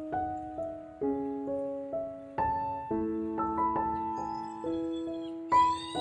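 Slow, gentle solo piano music of single notes and soft chords, each struck and left to ring. Near the end, high chirping calls join in over it.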